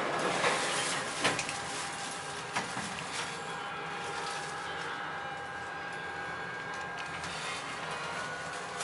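Ferry elevator car running between decks: a steady mechanical hum inside the car, with a few light clicks.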